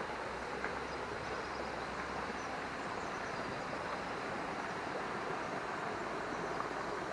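Shallow creek water running steadily over a stony, silted bed after heavy rain, an even rushing with no change.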